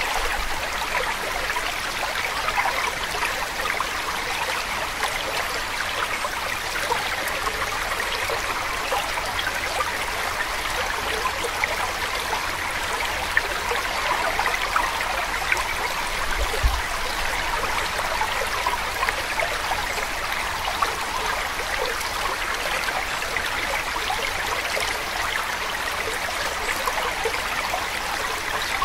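Steady sound of a running stream, water trickling and splashing evenly without a break, used as the masking track of a subliminal affirmation recording.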